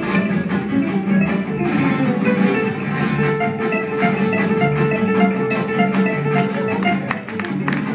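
Live gypsy jazz quartet playing: acoustic guitars strumming a steady rhythm under a melody, with violin and double bass. About three seconds in, one long note is held for several seconds, most like the violin's bow.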